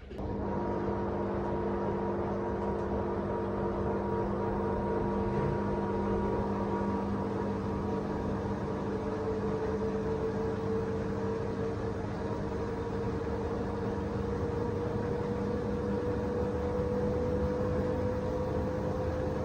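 Front-loading washer-dryer running: a steady mechanical hum that starts suddenly, with a tone that slowly creeps up in pitch.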